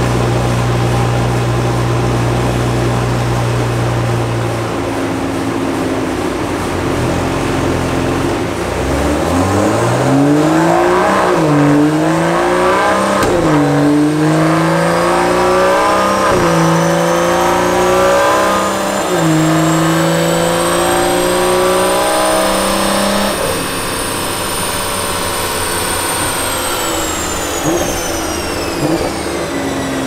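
BMW B58 turbocharged inline-six with a catless downpipe and stock exhaust: it idles steadily, then revs up with the pitch climbing and dropping back at each of several shifts. A little past two-thirds of the way in the throttle closes, and a high whine falls away as it coasts down.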